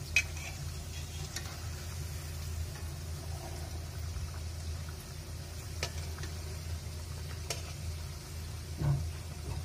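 Shankarpali dough pieces deep-frying in hot oil in a metal kadhai, a steady sizzle. A few sharp metal clinks come through as a perforated slotted spoon turns them against the pan.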